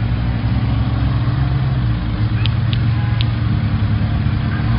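Supercar engines running at low speed, a steady low engine note without revving. Three brief high chirps come about two and a half to three seconds in.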